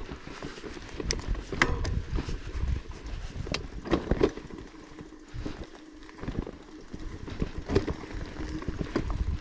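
Bicycle rolling over a rough, overgrown dirt trail: irregular rattles and knocks as it goes over bumps, with a low wind rumble on the microphone.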